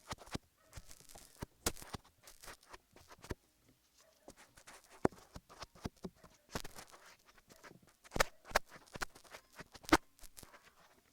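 Close-up ASMR ear massage: fingers rubbing and pressing on an ear, making irregular sticky clicks and crackles. The loudest snaps come about 8 and 10 seconds in.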